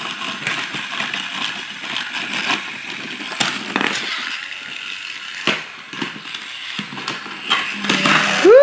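Battery-operated toy car's small motor whirring while plastic parts clatter, with irregular clicks and knocks as the car and plastic track pieces are handled. A voice rises in pitch right at the end.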